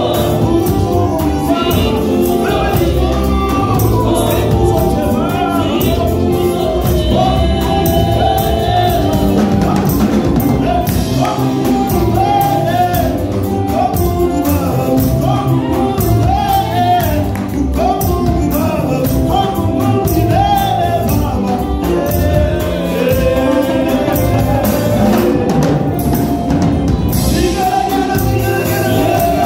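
Live gospel song: a man singing lead into a microphone, with women's backing vocals over a band with drums and a steady beat.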